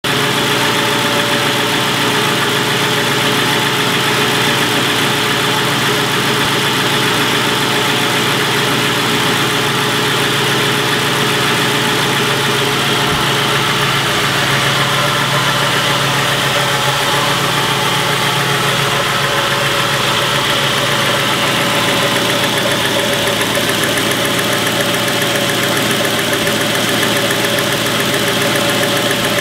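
2001 Ford Crown Victoria Police Interceptor's 4.6-litre two-valve modular V8 idling steadily with a fast, even ticking from the top of the engine, which the owner ties to the rocker arms or lifters.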